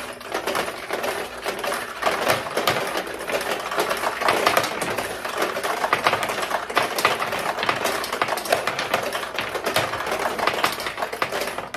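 1973 Nishijin Model B vintage pachinko machine being played: steel balls fired one after another and clattering down through the pins, a dense, continuous rattle of small metallic clicks.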